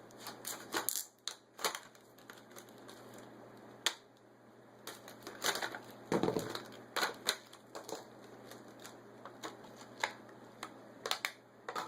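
Unboxing of a red dot sight's packaging: a run of irregular clicks and taps, with a longer spell of rustling in the middle.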